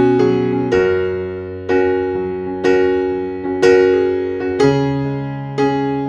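Background music: slow, gentle keyboard chords struck about once a second, each fading away before the next.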